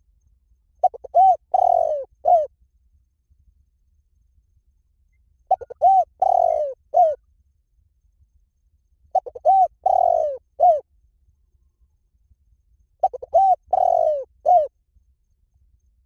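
Spotted dove calling: four cooing phrases, about four seconds apart. Each phrase is two short coos, a longer drawn-out coo, and a final short coo.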